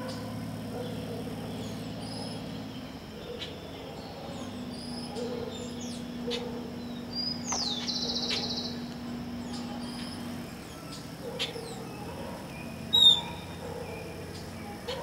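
Large carpenter bee (mangangá) buzzing among jacaranda flowers: a low, steady hum that breaks off about three seconds in and comes back for several seconds before fading. Birds chirp throughout, with one loud chirp about thirteen seconds in.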